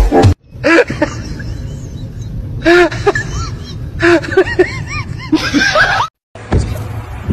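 A person giggling in short rising-and-falling bursts, in three spells with pauses between, over a steady low background hum.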